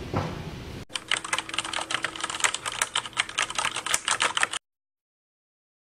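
Rapid computer-keyboard typing clicks, a typing sound effect, starting about a second in and cutting off abruptly near the end.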